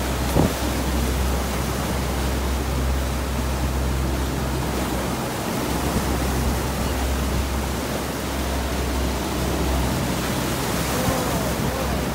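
Steady rush of a boat's churning wake and wind on the microphone over a low, constant engine drone, with a single thump about half a second in.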